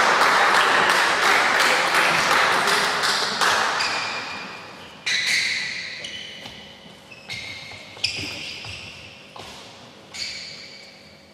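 Applause fading out over the first three seconds, then a badminton rally: about four sharp pings of rackets striking the shuttlecock, each ringing briefly in the hall, with fainter taps between them.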